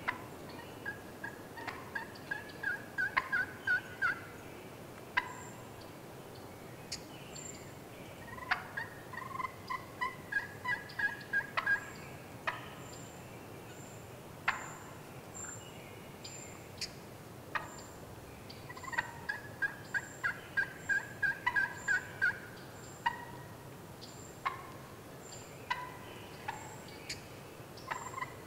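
Wild turkey calling: runs of quick, repeated, slightly falling notes, heard three times with a fourth starting at the end, with scattered sharp clicks in between.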